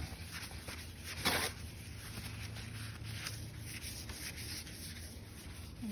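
Hand and paper towel rubbing across a polished quartzite slab: repeated dry wiping strokes, with one louder swipe about a second in.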